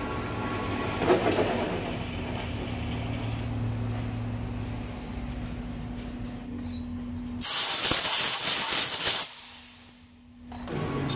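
Metal lathe running without cutting, a steady hum from its motor and gearbox. About seven and a half seconds in, a loud hiss of compressed air lasts about two seconds, then there is a short lull before the lathe hum returns.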